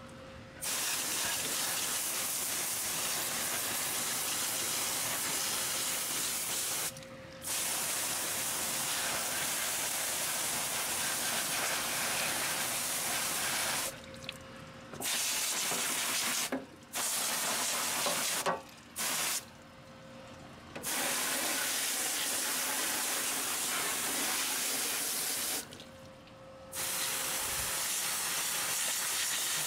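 Pressure washer spraying water in a loud, steady hiss, cutting out about six times for a second or so as the trigger is let go and squeezed again.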